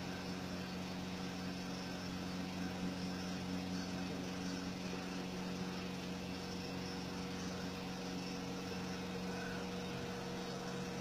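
Steady low mechanical hum with a few unchanging tones, like a machine running; it holds level throughout.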